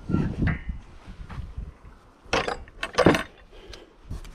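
Footsteps and the rustle and crackle of plants brushing past while pushing through overgrown undergrowth, with two loud sharp crackles about two and a half and three seconds in.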